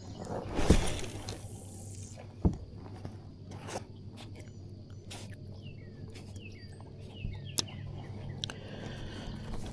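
A bird calling in a run of short, falling chirps over the open water. There is a brief rushing swish near the start, the loudest sound here, and a sharp knock a couple of seconds later, with a few lighter clicks.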